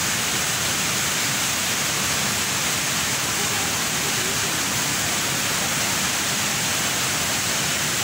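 Large indoor waterfall, the Rain Vortex, pouring down into its pool: a steady, even rush of falling water.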